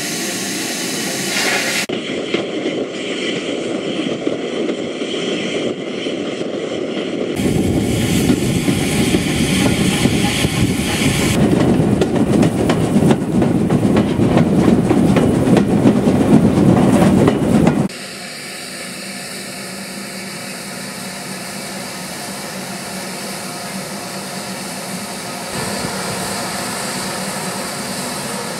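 Steam locomotive and its train on the move, louder through the middle, then dropping suddenly about two-thirds of the way through to a quieter, steadier running sound.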